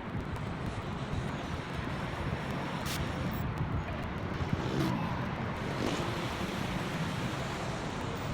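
Steady heavy rain falling, with wind rumbling on the microphone and the fine ticking of drops striking close by.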